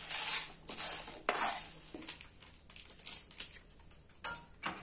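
A metal spatula scraping and stirring dry whole spices (dried red chillies, dals, seeds and curry leaves) across a flat tava while they dry-roast, several scraping strokes in the first two seconds, then lighter rattling clicks and two sharp knocks near the end.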